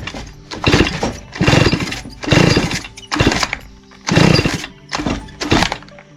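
Small two-stroke string-trimmer engine, a Stihl FS 55 R, revved in short irregular blips about once a second, testing that the repaired throttle trigger and cable respond.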